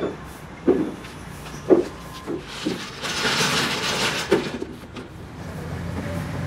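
About half a dozen dull knocks as stacks of lead battery plates are tapped square and set down, with a brief rustle midway, over a low workshop hum.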